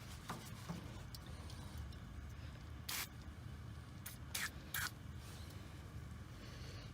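Aerosol can of PB Blaster penetrating oil sprayed in three short hissing bursts, one about three seconds in and two close together about a second and a half later, soaking a rusted-in metal door hinge liner to free it.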